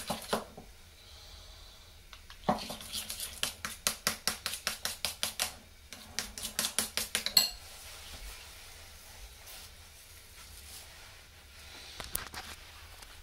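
A spoon stirring thick double cream in a bowl, clinking against the sides in quick strokes of about five a second. There are two spells of stirring, a few seconds in and again just after, and the stirring stops about halfway through.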